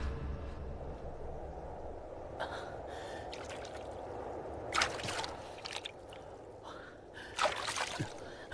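A man splashing water over his head and face, with sharp gasping breaths; the loudest gasp or splash comes about five seconds in, with more near the end.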